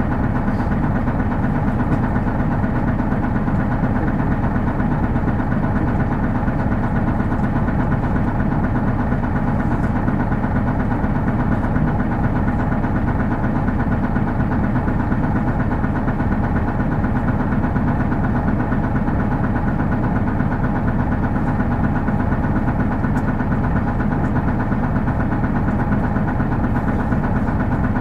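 Hino Blue Ribbon City Hybrid bus's diesel engine running at a steady, unchanging pitch, heard from inside the passenger cabin: a low, even drone with no revving.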